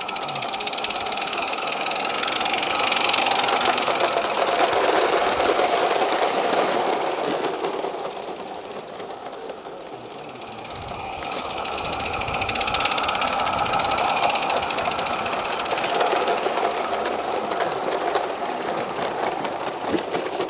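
Garden-scale model trains running past on outdoor track: a fast, steady mechanical clatter that swells and fades. It builds again for a second pass after about ten seconds. The first train is a small live steam locomotive.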